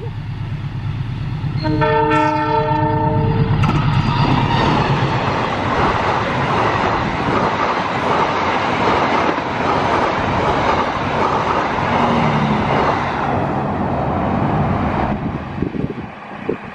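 Diesel locomotive hauling a passenger train at speed: its engine rumbles as it nears, and it sounds its horn, a chord held about two seconds. The coaches then rush past with loud wheel and rail noise, which cuts off abruptly near the end.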